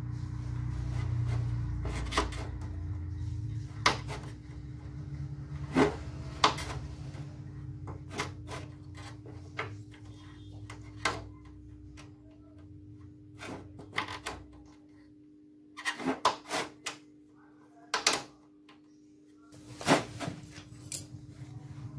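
Irregular sharp clicks and knocks of hard plastic photocopier cassette parts being handled and worked by hand, with a quick cluster of clicks about three-quarters of the way through. A low rumble underneath fades out a little past halfway, and a faint steady hum runs beneath it all.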